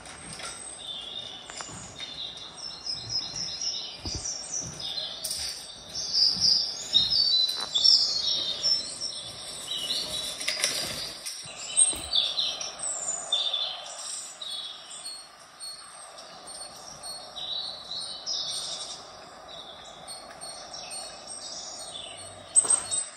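Many small birds chirping and calling in quick, overlapping bursts, played from a bird video for cats through an Echo Show smart display's speaker.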